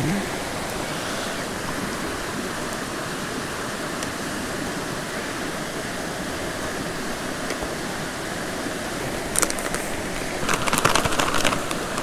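Mountain stream rushing steadily. Toward the end, a foil-lined freeze-dried meal pouch crinkles and crackles as it is handled and folded shut.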